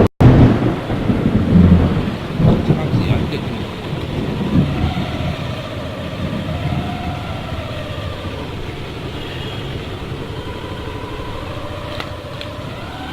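Storm wind with rain, buffeting the microphone. Heavy rumbling gusts come in the first few seconds, then it settles to a steady rush with a faint wavering tone through it.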